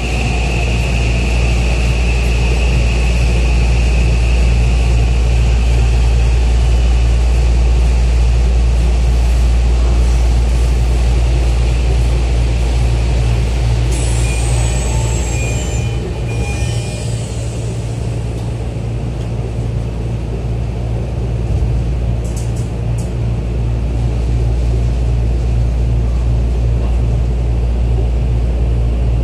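Steady low hum inside a Tokyo Metro 10000-series subway car standing at a platform. About halfway through come a brief high falling whistle and short chime-like tones, and the doors close before the train moves off.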